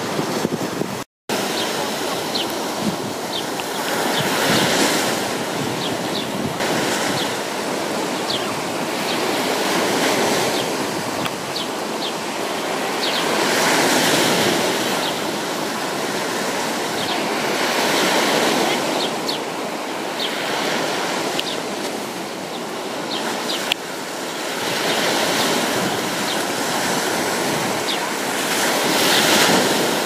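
Black Sea surf breaking on a sandy beach: a steady wash of waves that swells and ebbs every four to five seconds. The sound cuts out for a moment about a second in.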